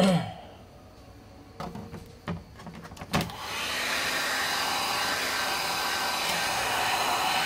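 A few knocks, then a click about three seconds in as a small Nova hand-held hair dryer switches on and runs with a steady blowing rush, heating the phone's front display panel before it is prised off.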